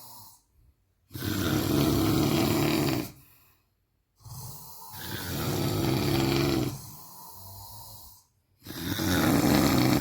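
A sleeping man snoring heavily: three loud, drawn-out snores about three to four seconds apart, with near-silent pauses between them. The middle snore trails off into a quieter stretch before the pause.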